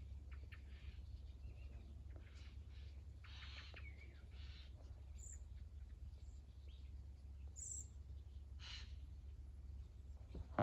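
Birds calling faintly: short, scattered calls and a few high chirps, over a steady low hum.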